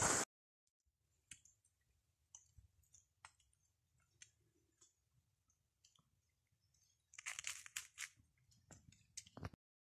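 Mostly near silence with a few faint, scattered ticks, then from about seven seconds in a run of short, irregular crunching bursts: footsteps and brushing on a wet trail.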